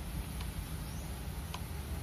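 Two faint short squeaks about a second apart over a steady low background hum.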